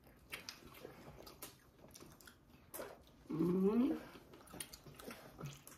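Quiet chewing and small mouth clicks of people eating soft tacos. About three and a half seconds in comes a short, pitched voice sound, an 'mm' or whine, which is the loudest thing heard.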